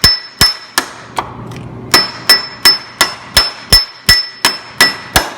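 Hammer striking the cracked steel frame of a zero-turn mower to beat the bent section flat, about fourteen sharp blows at roughly three a second with a short pause about a second in, each leaving a metallic ring.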